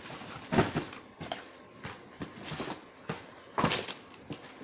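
Boxes and packaged snacks being moved and set down: two louder knocks, about half a second in and again late on, with lighter handling noise between.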